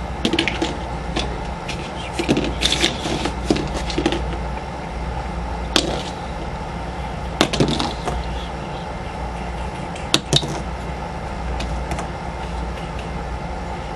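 Plastic pieces of a disassembled dollar-store 3x3 puzzle cube clicking and knocking as they are handled and fitted back onto the core, in scattered irregular clicks. The sharpest clicks come about six, seven and a half, and ten seconds in.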